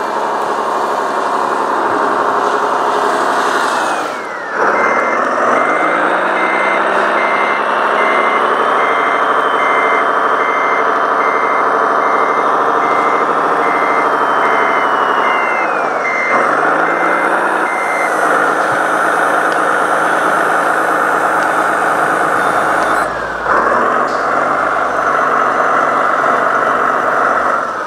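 Radio-controlled MAN tipper truck's sound module playing a simulated diesel engine that revs up about four seconds in and then runs steadily. A reversing beeper sounds about twice a second for roughly thirteen seconds, and the engine note drops and changes twice later on.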